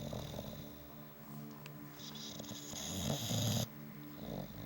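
English bulldog snoring in its sleep: a quieter stretch of breathing, then a loud snore starting about two seconds in that lasts a second and a half and cuts off abruptly.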